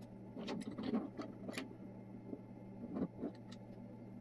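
Hands pressing 3D-printed plastic lock parts together and closing a one-handed bar clamp on them: a scatter of short clicks and knocks, busiest in the first second and a half and again around three seconds in, over a faint steady hum.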